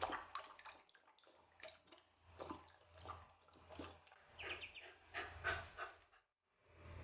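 Golden retriever puppy licking and lapping at the water in a basin, a run of soft wet clicks, with light splashing from ducklings paddling and a few faint high duckling peeps.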